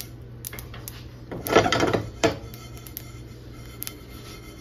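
Sesame seeds toasting in a dry pan, with scattered small pops and ticks as the seeds start to jump, the sign they are nearly done. About a second and a half in comes a loud scrape of seeds and spatula across the pan, then a shorter one just after two seconds.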